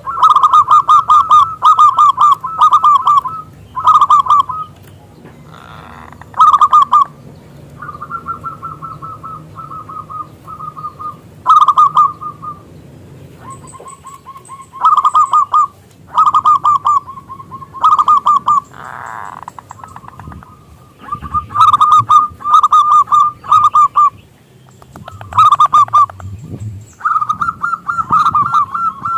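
Zebra dove (perkutut) cooing in repeated phrases of rapid, stuttering notes, with short pauses between phrases.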